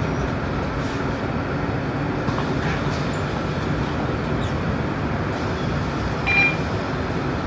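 Cabin noise of a Scania Euro 4 single-deck bus on the move: steady engine and road noise, with a brief high tone about six seconds in.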